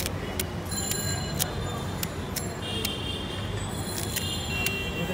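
Kitchen knife slicing a crisp green hog plum held in the hand: sharp clicks about twice a second, some with a light metallic ring, over a steady street-noise background.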